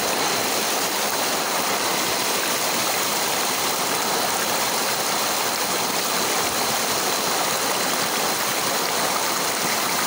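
Stream water rushing steadily over rocks.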